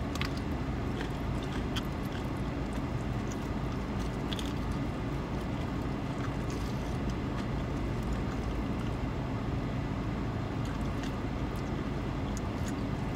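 Steady low hum of a parked car heard from inside the cabin, with faint, scattered chewing and biting clicks of fried chicken being eaten.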